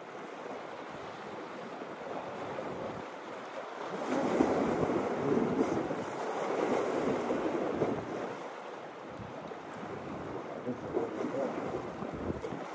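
Small waves breaking and washing against the shore, with wind buffeting the microphone; the wash grows louder about four seconds in and eases again a few seconds later.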